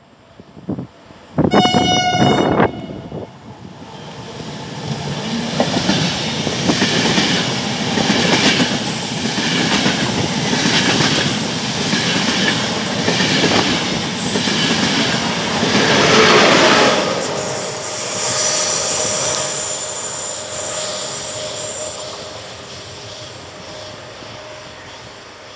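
Horn of an Intercity train hauled by FS E.401 electric locomotive 032 sounding one blast of about a second as it approaches. Then the train passes at speed: coaches rumbling with a regular clatter of wheels over the rail joints, loudest about two-thirds of the way through, then fading away with a faint high whine.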